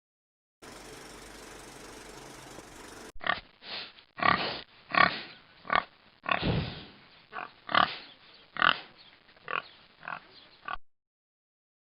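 Pig grunting and squealing in a string of about a dozen short calls, after a couple of seconds of steady hiss.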